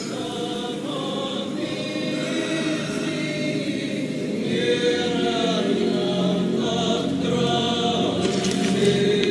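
Choir singing long-held notes as the score of a television drama, the pitch shifting slowly from note to note.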